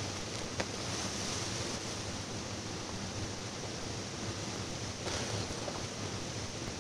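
Steady hiss of background noise, with a faint click about half a second in.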